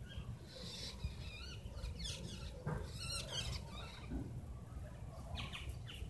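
Faint outdoor ambience: a low steady rumble with scattered short, high chirps, clustered about a second to three and a half seconds in and again near the end.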